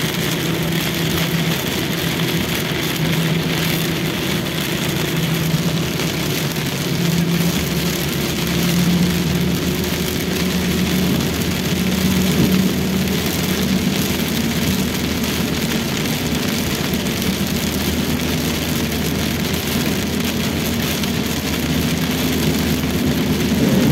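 Inside a Toyota Rush driving in heavy rain: a steady rush of rain on the car and tyres on the wet road, over a low engine hum that climbs slowly in pitch.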